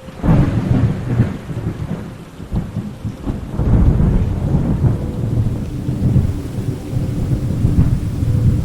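Thunderclap that breaks sharply and rolls into a long, deep rumble, swelling again about three and a half seconds in, over steady rain.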